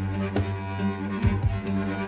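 Background music: held low notes with a few sharp percussive hits.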